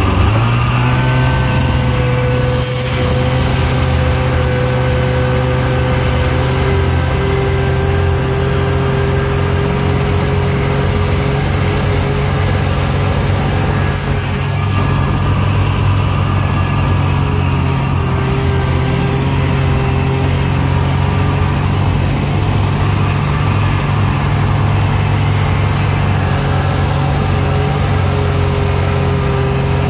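Snowmobile engine running steadily while riding over snow, heard from the rider's seat: a constant low drone with a higher whine that wavers slightly in pitch, easing off briefly a couple of times.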